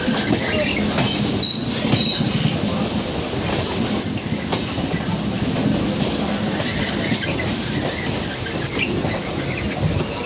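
LHB passenger coaches of an express running past close alongside on the adjacent track: a steady rumble and clatter of wheels over the rails. A thin, high wheel squeal rises out of it for a little over a second, about four seconds in.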